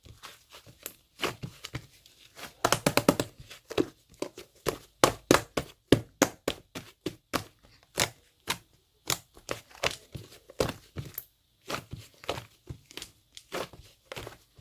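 Slime being squeezed and pressed by hand, making an irregular run of sharp popping clicks, several a second, with a quick dense cluster about three seconds in.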